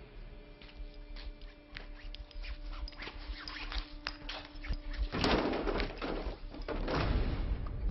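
Film sound effects: footsteps crunching and knocking over broken debris, over a low steady hum. Then, about five and seven seconds in, two louder rushing bursts of noise as the school bus's rear door is opened and boarded.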